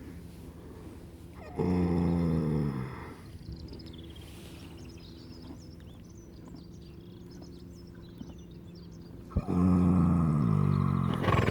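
An animal lying down and snoring: two long, loud snores about eight seconds apart, each falling in pitch, with quieter breathing between them.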